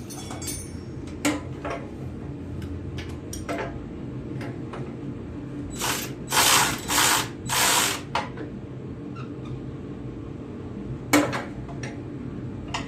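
Socket ratchet wrench clicking as bolts are tightened, with scattered sharp clicks and knocks of metal tools; about six to eight seconds in come four quick ratcheting strokes in a row.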